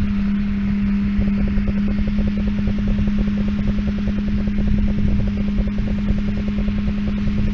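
Tractor engine running steadily at a constant speed, a loud even drone with a strong steady hum.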